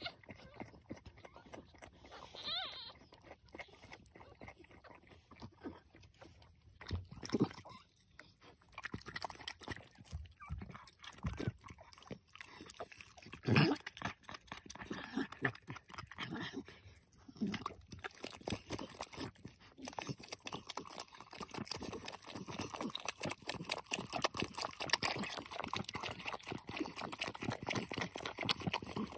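XL American Bully mother licking and cleaning a newborn puppy: steady wet licking and slurping that gets busier in the second half. A short high squeak comes about two and a half seconds in, and a few dull thumps around seven and thirteen seconds in.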